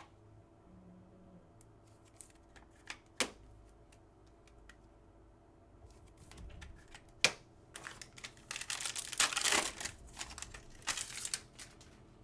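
Trading cards and card packs being handled by hand: a few sharp clicks, then a louder burst of crinkling and rustling about eight seconds in.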